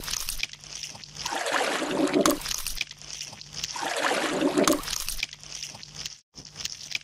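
Wet squelching and sloshing sound effects: two long swelling squelches, about a second in and about four seconds in, over a continuous crackling hiss. A brief dropout comes near the end.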